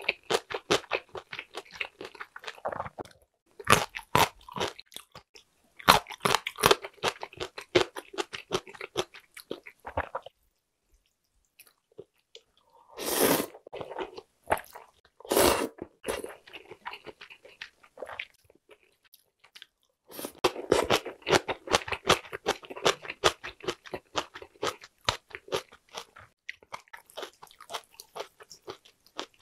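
Close-miked eating sounds of thin wheat noodles in warm broth: rapid wet chewing clicks, and about halfway through two louder slurps of noodles, then more chewing.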